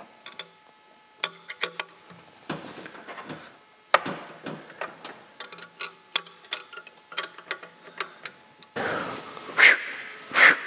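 Irregular small metal clicks and ticks of a wrench working the clamp bolts on a turbocharger's housing, loosening it so the housing can be clocked. Near the end a louder scraping rustle as the turbo housing is rotated by hand.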